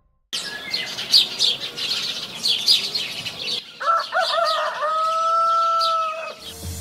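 Small birds chirping rapidly and repeatedly, then a rooster crowing about four seconds in: a few short notes ending in one long held note. Music starts just before the end.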